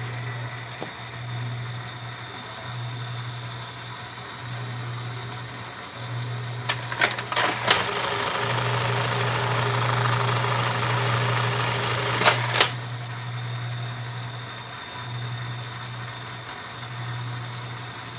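Singer 299U eyelet buttonhole sewing machine: its motor hums steadily, then about seven seconds in it starts with a few sharp clacks and runs loudly through a stitching cycle for about six seconds. The cycle ends with a sharp knock, and the steady hum goes on.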